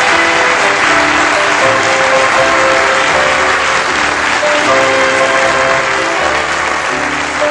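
Audience applauding while music plays, a melody of held notes under the dense clapping.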